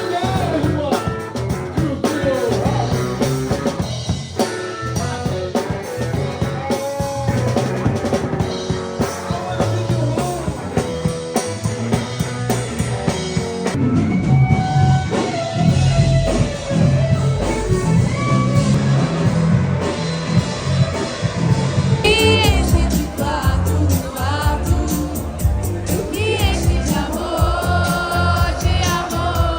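Song with singing over a rock-style drum kit, loud and steady throughout.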